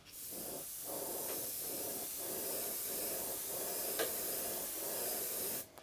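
Harder & Steinbeck Evolution airbrush spraying black paint in a steady hiss, which cuts off shortly before the end.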